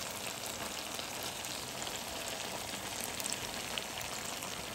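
Frying pan sizzling steadily with fried onion and tomato paste, chopped pickled cucumbers just added, with a few faint crackles.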